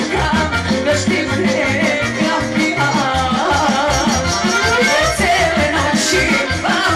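Live band music through a PA, with a woman singing into a microphone over a quick, steady beat.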